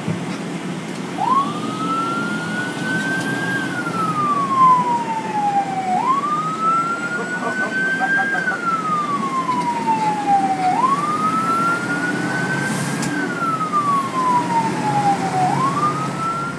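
Fire truck's siren wailing, heard from inside the cab, its pitch rising and falling about every five seconds, with the truck's engine and road noise running underneath.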